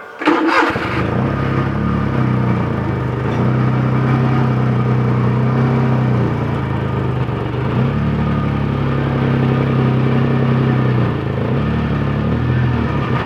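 Petrol car engine driving a concrete power trowel, running steadily with small rises and dips in speed, after a brief loud burst near the start.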